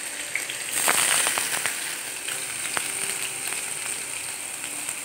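Paneer cubes sizzling as they fry in hot refined oil in a frying pan. A steady hiss runs throughout, with a burst of crackles about a second in that then eases back to a gentler sizzle.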